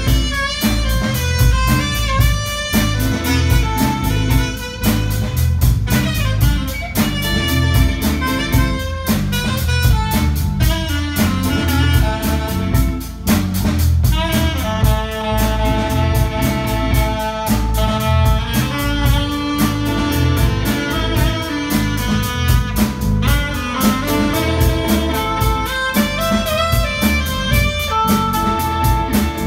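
Live band playing an up-tempo instrumental: saxophone carrying the melody over a drum kit with a steady beat, electric bass and electric guitar.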